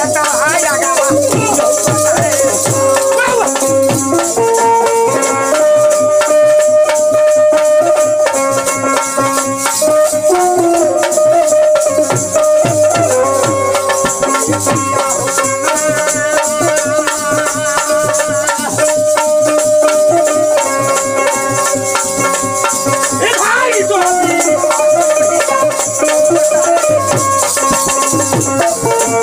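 Bhojpuri nirgun folk music played live: a harmonium holding a stepping melody over a dholak and a hand-shaken rattle. A voice slides briefly near the start and again about 23 seconds in.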